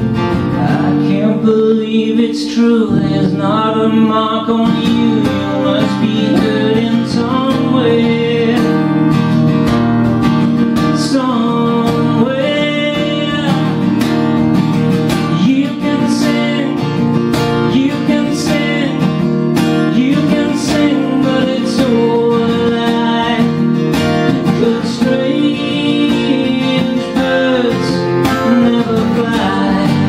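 Steel-string acoustic guitar strummed steadily in a live solo performance.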